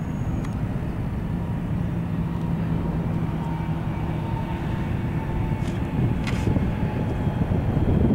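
Jet airliner engines running as planes move about the airfield: a steady low rumble with a faint steady hum over it.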